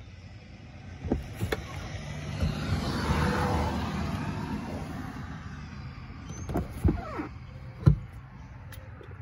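Rear seatbacks of a 2021 Cadillac XT5 folding down when the cargo-area release buttons are pressed. There are clicks about a second in, then a rushing sound that swells and fades, and two thumps about a second apart near the end.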